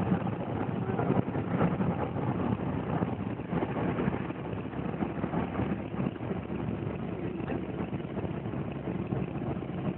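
A car driving along, its steady engine and road noise heard from inside the cabin.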